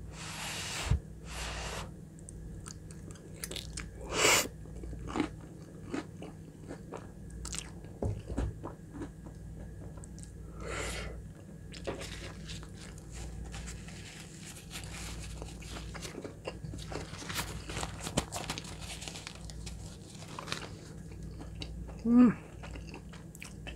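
Close-miked chewing and mouth sounds of a person eating a forkful of creamy chicken alfredo pasta: irregular wet smacks, clicks and crunches. Near the end comes a short vocal sound that falls in pitch.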